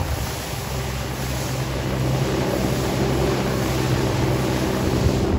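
Motorboat engine running steadily under way, with water rushing along the hull and wind on the microphone.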